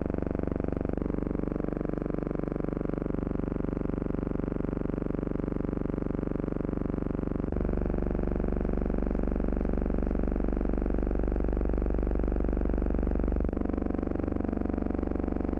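Steady buzzing hum with many overtones, the noise track of an archival film transfer rather than any sound from the scene. Its tone shifts abruptly at each splice: about a second in, about halfway through, and about two seconds before the end.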